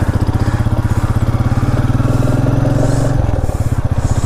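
Single-cylinder motorcycle engine running while riding, with a steady rapid pulsing; its note changes about three seconds in.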